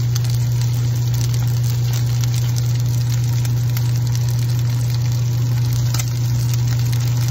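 Seafood green-onion pancake batter sizzling in a frying pan, over a loud steady low hum.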